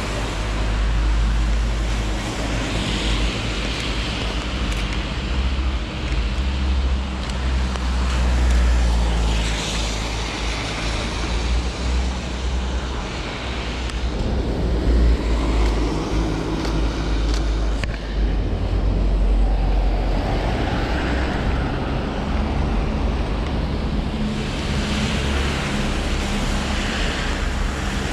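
Street traffic on a wet road: cars passing with a tyre hiss that swells and fades several times, over a steady low rumble.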